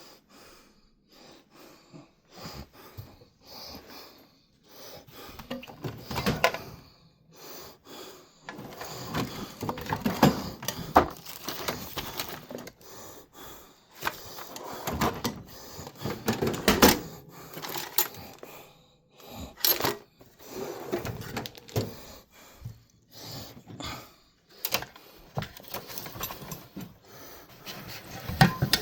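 Irregular metallic clinks, knocks and rattles of hand tools being handled in a tool chest, with louder knocks around the middle and near the end.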